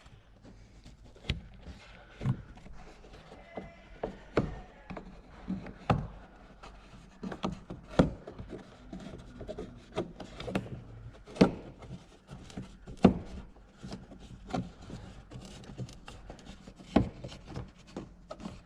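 Irregular light knocks, clicks and rubbing from hands fitting and handling interior trim parts, a sharp knock every second or two with no steady rhythm.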